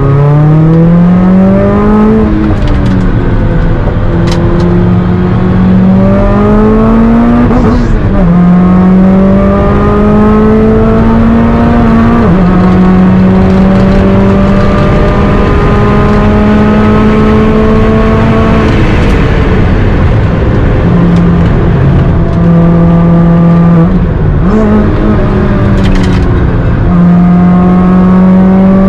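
Supercharged Mazda MX-5's four-cylinder engine driven hard on track, heard from inside the cabin. The engine note climbs in pitch and drops back several times as the car pulls through the gears and lifts for corners.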